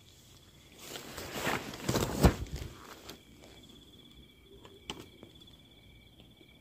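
Rustling and footsteps on rough ground, with a sharp knock a little over two seconds in, while the phone is carried; then a night insect trills steadily at a high pitch, with a couple of faint clicks.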